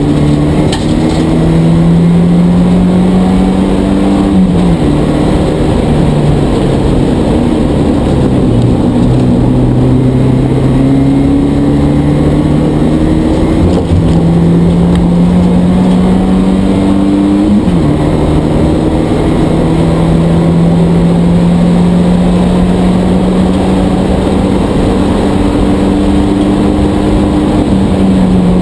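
Porsche 944 Spec race car's 2.5-litre four-cylinder engine, heard from inside the car, pulling hard at full throttle. Its note climbs steadily and drops sharply at gear changes about four seconds in and about two-thirds of the way through, with steady wind and tyre noise underneath.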